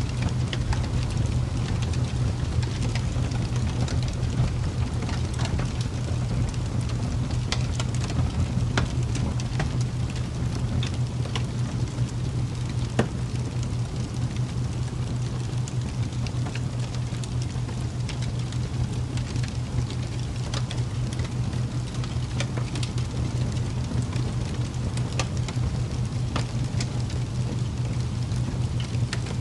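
Steady ambient sound bed: an even rushing hiss with scattered sharp crackles at irregular moments, over a constant low hum.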